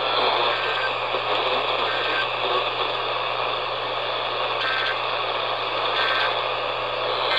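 Steady hiss and static of weak AM radio reception, under a low steady hum. Faint short data-burst tones recur about every second and a half: Emergency Alert System end-of-message bursts closing the alert.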